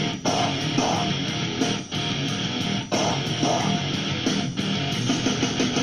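Background music led by strummed guitar, with a steady beat.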